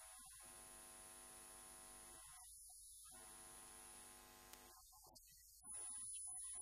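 Near silence: a steady low electrical hum with a faint high-pitched whine, a little louder near the end.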